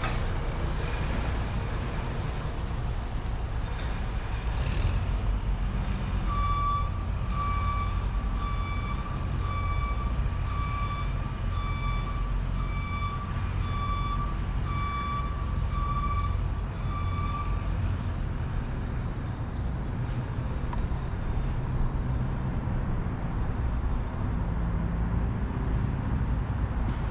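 A vehicle reversing alarm beeping about once a second, starting about six seconds in and stopping after around eleven seconds, over a steady low rumble.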